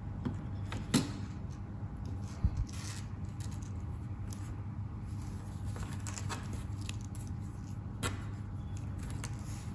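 A few light clicks and knocks as a CNC controller board and its limit-switch wire are handled on a table, over a steady low hum.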